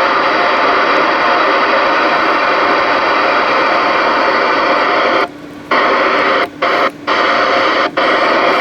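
Stryker SR-955HPC CB radio's speaker putting out loud, steady static hiss on receive, cutting out briefly a few times in the second half.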